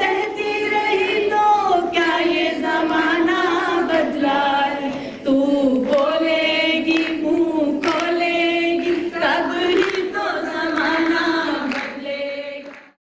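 A group of women singing together, with a song whose words call on women to speak out and not bear wrongs in silence. The singing stops abruptly near the end.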